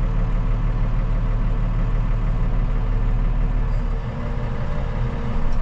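Tractor engine running steadily under the load of the hydraulics unfolding the sprayer booms, a low even drone that dips slightly about four seconds in.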